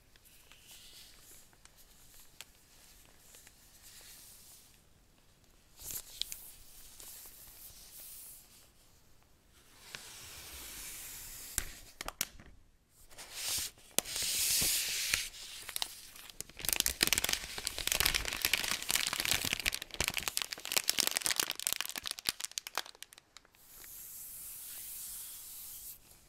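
Protective plastic wrap being peeled and pulled off a new iPad Pro, with crinkling and crackling. It starts as soft rubbing, comes in bursts, and is densest and loudest in the second half, ending in a softer rustle.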